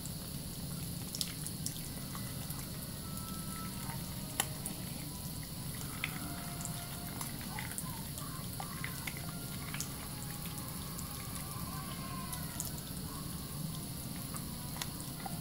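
Thin stream of tap water running steadily into a sink, with scattered wet clicks and smacks from soapy hands lathering a bar of soap.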